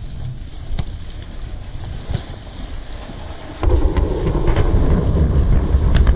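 Thunderstorm: low rumbling of wind and rain on the microphone, then a loud roll of thunder that comes in suddenly about three and a half seconds in and keeps rumbling.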